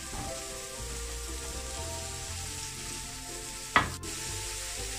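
Chopped onions sizzling in oil in a pan while being stirred with a wooden spatula, with one sharp knock about three-quarters of the way through.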